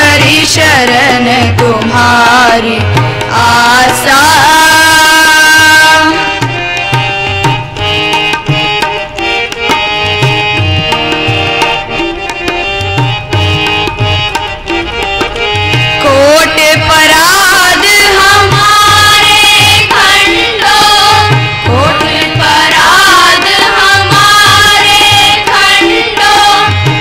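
Sikh shabad kirtan: voices singing to harmonium with tabla keeping a rhythm. For about ten seconds in the middle the singing drops out and the harmonium carries the tune alone over the tabla, then the voices come back in.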